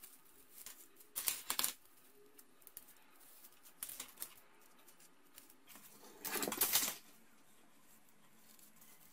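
Fingers handling and folding grosgrain ribbon while pinning a small bow: soft rustling and light scraping with scattered small clicks, and two louder rustles, about a second in and again around six seconds in.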